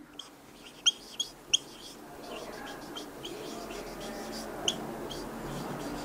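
Marker pen writing on a whiteboard: a run of short, high squeaks as the strokes are drawn, most of them in the first two seconds and one more near the end.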